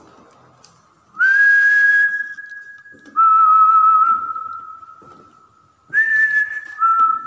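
A two-note whistle, a high held note dropping to a lower one that fades slowly, heard twice; the second pair is shorter.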